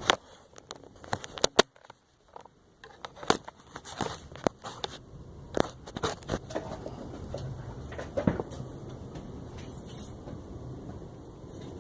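Several sharp clicks and knocks, then from about three seconds in a 12-valve diesel engine's low rumble builds and settles into a steady run.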